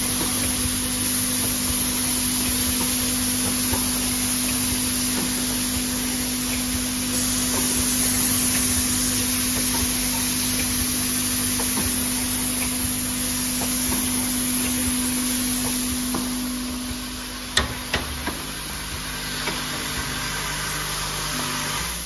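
Bottle filling, plugging and capping machine running: a steady hum and noise with light knocking and clicking from the indexing mechanism. About three-quarters of the way through the hum drops away and the sound gets quieter, leaving a few sharp clicks.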